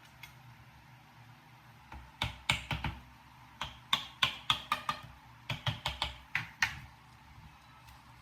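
Three runs of quick, light clicking taps, starting about two, three and a half and five and a half seconds in, the middle run the longest.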